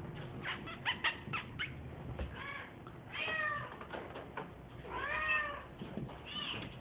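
Bengal kitten meowing: four short arching mews in the second half. Before them comes a quick run of light clicks and taps.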